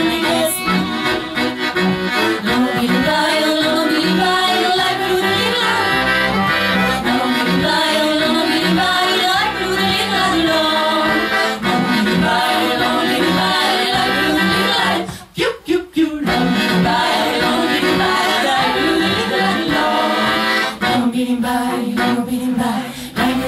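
Klezmer band playing live on violin, accordion, cello and clarinet, with singing. The music stops short for about a second some fifteen seconds in, then picks up again.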